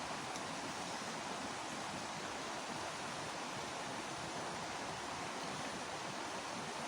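Steady rushing of flowing stream water, an even hiss with no breaks or distinct events.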